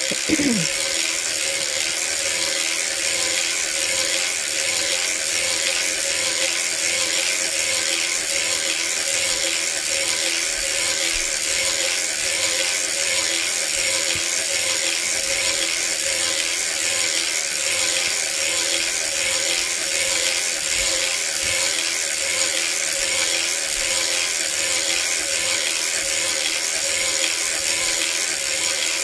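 Erlbacher Gearhart Speedster circular sock knitting machine being hand-cranked continuously, knitting round after round in plain tubular knit. Its needles and cam make a steady, even clatter of clicks.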